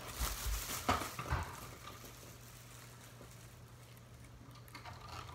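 A few soft rustles and knocks in the first second and a half, then quiet room tone with a faint low hum.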